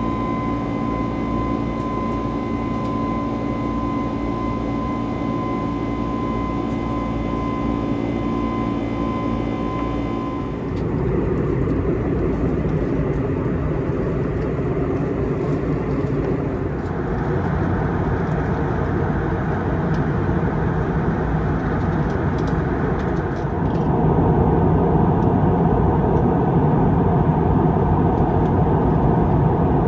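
Airliner cabin noise from an Airbus A321: a steady engine and airflow rumble, with a steady whine through the first ten seconds. About ten seconds in, it cuts to a louder, rushing roar, and it changes abruptly twice more.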